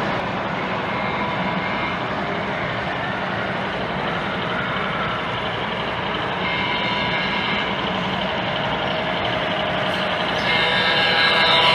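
Sound-equipped model diesel locomotive's engine sounds played through its small onboard speaker, a steady mechanical drone with several held tones, growing louder about ten seconds in as the locomotive approaches.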